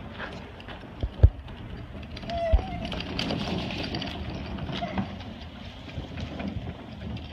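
Wagon rolling over the ground, its wheels and body rattling steadily, with sharp knocks about a second in, just after, and again near two and a half seconds.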